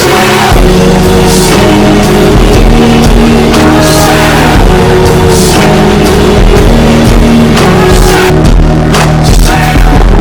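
Rock song with sung vocals, electric guitar and drums, laid over the footage as background music.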